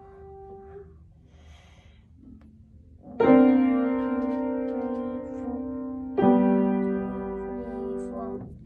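A young beginner plays a Yamaha upright piano. A held note dies away in the first second. After a short pause a chord is struck and left to ring for about three seconds, then a second chord is struck and held.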